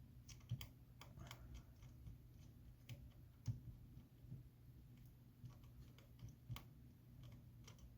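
Faint, irregular small clicks and taps of precision tools and tiny metal parts on a smartphone's internal bracket during reassembly, the loudest about half a second and three and a half seconds in.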